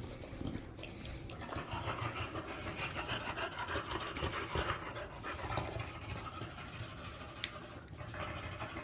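A dog panting steadily, out of breath after a walk.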